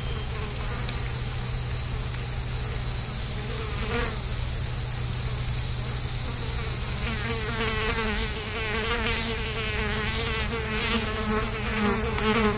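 Tropical rainforest insect chorus: several steady high-pitched drones over a low hum. A wavering, warbling sound joins in about halfway through.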